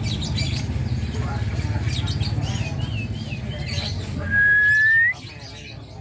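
Caged songbirds chirping and trilling over a steady murmur of crowd chatter, with one loud, clear whistle rising slightly in pitch for under a second about four seconds in.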